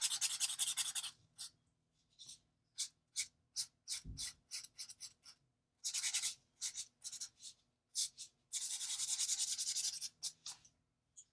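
Alcohol marker tip scratching across paper in quick back-and-forth colouring strokes, coming in runs of a second or two with single strokes between them; a soft low thump about four seconds in.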